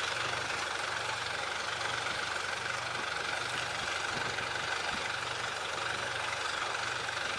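Excavator engine running steadily, a low pulsing hum under an even hiss.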